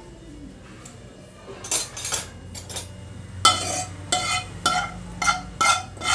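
Metal spoon clinking against metal cookware, a few light knocks at first, then a run of sharp ringing clinks about twice a second in the second half.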